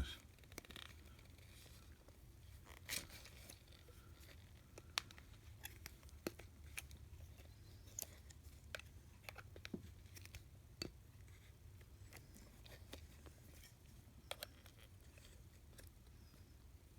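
Faint, scattered sharp clicks and taps of small metal sockets and their plastic holder being handled, over a low steady hum.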